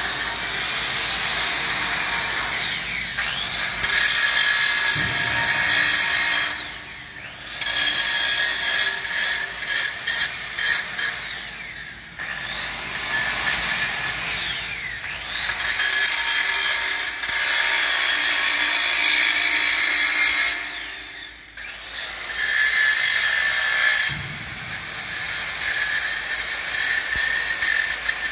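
Handheld angle grinder with a grinding disc working a steel plate, sparks flying: a steady, high grinding noise. Every few seconds it drops off briefly as the disc comes away from the metal, and the motor's pitch shifts with the changing load.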